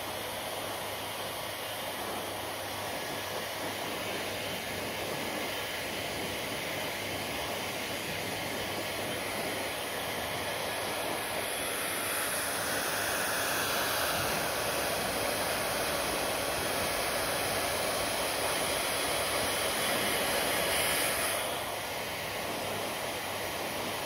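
Handheld hair dryer blowing steadily, a continuous rush of air; from about halfway it grows louder and hissier, then drops back a couple of seconds before the end.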